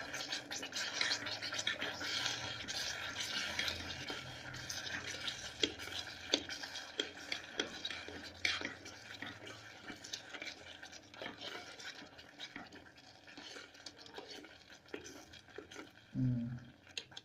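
A spoon stirring and scraping semolina halwa in an electric kettle's pot as the water cooks off: a continuous rasping with many small clicks, slowly fading toward the end.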